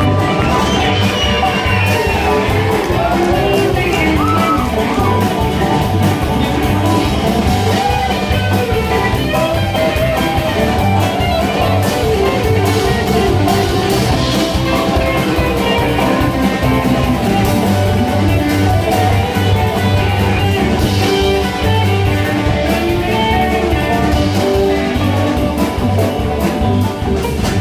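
A live string band playing: banjo, mandolin, acoustic and electric guitars, upright bass and drums.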